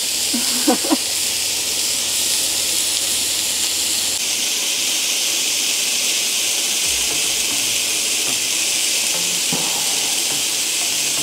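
Meat-and-vegetable skewers sizzling on the grill plate of a Cadac Grillo Chef 2 gas grill, a steady even hiss.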